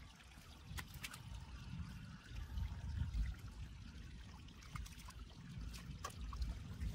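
Shallow water trickling and sloshing, with scattered small splashes and drips over a low, uneven rumble.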